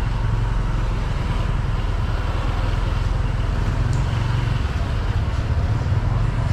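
Steady low rumble of a vehicle driving through city streets: engine and road noise, with traffic around.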